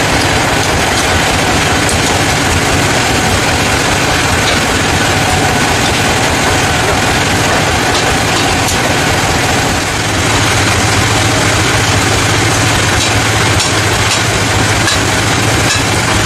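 Sawmill machinery running steadily, a dense mechanical noise under an engine hum. The low hum grows stronger about ten seconds in.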